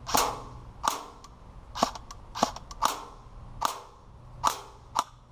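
Airsoft rifle firing single shots, heard from behind a wooden board that the BBs strike: about eight sharp cracks, spaced irregularly half a second to a second apart.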